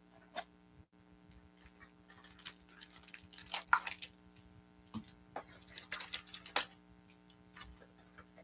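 Crackling and crinkling of packaging being handled and torn open, in irregular clusters of short crackles loudest about a third of the way in and again near the end: the next trading card hobby box and its packs being opened. A steady electrical hum runs underneath.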